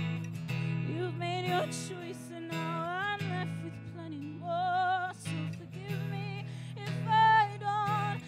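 A woman singing a slow melody with vibrato on her held notes, accompanying herself on a strummed acoustic guitar.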